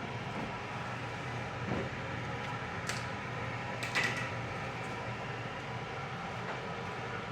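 A steady mechanical hum, with a couple of sharp clinks about three and four seconds in.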